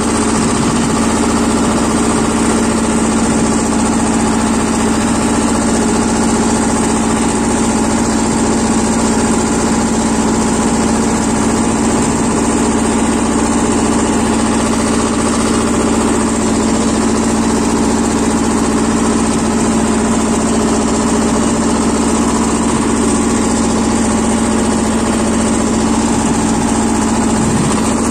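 Lombardini 5LD-825-2 two-cylinder diesel of a BJR F 3800 tractor running steadily as the tractor is driven along a track, heard close from the driver's seat.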